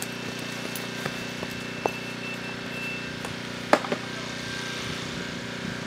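A motor runs with a steady hum made of several evenly spaced pitches. A few sharp clicks sound over it, the loudest a single knock about two-thirds through. Near the end come footsteps on wet, muddy ground.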